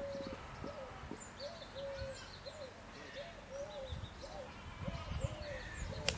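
Birds calling: a low, arched cooing note repeated about twice a second, with scattered higher chirps. A single sharp crack comes just before the end.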